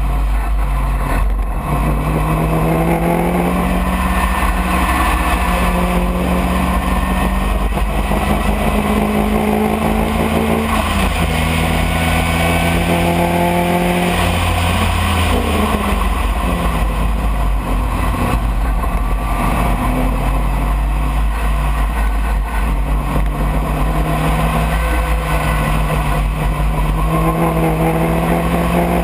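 Racing car's engine at full throttle, heard from the open cockpit: the revs climb steadily for several seconds, fall away and drop through a slowdown around the middle, then climb again. A low wind rumble runs under it.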